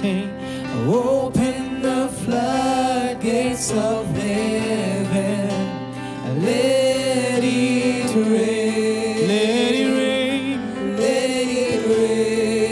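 Live gospel worship music: singers' voices, swooping and wavering in pitch, over electronic keyboard and acoustic guitar.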